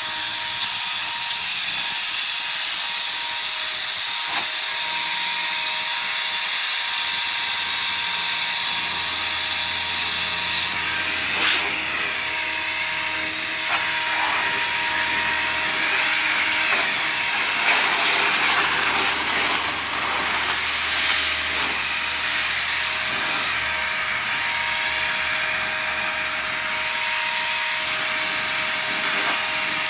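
Handheld leaf blower running steadily: a rushing hiss of air over a steady mechanical whine, the hiss wavering up and down in the middle.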